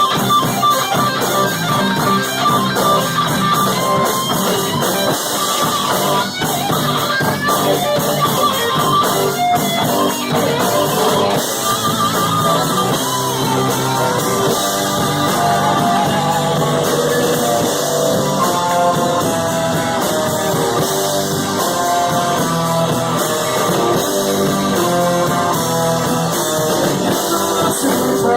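Rock music led by guitar, with what may be a singing voice, playing continuously.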